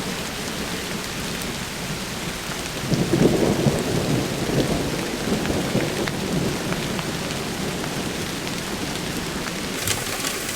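Heavy downpour of rain, a steady hiss, with a roll of thunder rumbling up about three seconds in and dying away over several seconds.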